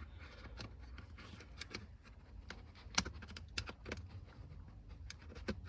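Faint scattered clicks and scrapes of a screwdriver prying at a plastic car USB port housing, with one sharper click about three seconds in.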